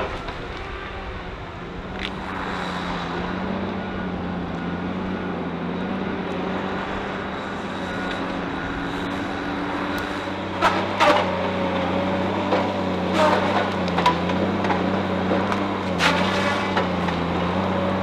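Logging machine's diesel engine running steadily under load with a wavering hum. From about ten seconds in, several sharp cracks and snaps of wood as the felling head works.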